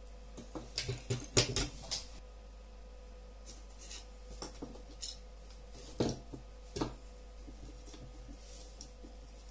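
Clicks and light knocks of hard plastic ear-protector parts being handled and set down on a table. There is a quick cluster about a second in and a few more around six to seven seconds in.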